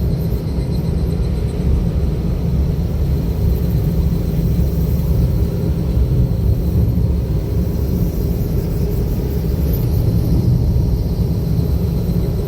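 Car driving along a road, heard from on board: a steady low rumble of engine and tyre noise with no change in pace.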